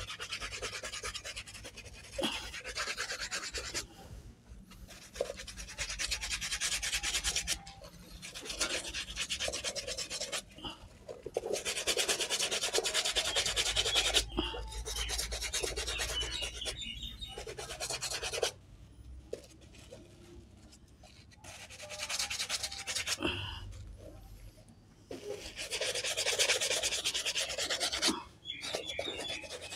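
A brush scrubbing a canvas sneaker with soapy water: quick back-and-forth scratchy strokes in bouts of a few seconds, with short pauses between them.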